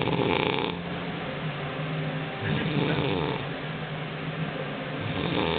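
A man snoring in his sleep, one snore on each breath about every two and a half seconds, three in all.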